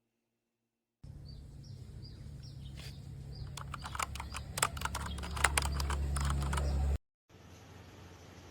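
A run of irregular sharp clicks over a low steady hum, with a few short high descending chirps before the clicks begin; the sound cuts off abruptly and is followed by a quieter steady hiss.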